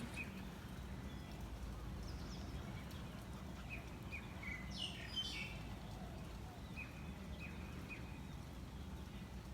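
Birds giving short, scattered chirps over a steady low background rumble, with a brief burst of several calls about five seconds in.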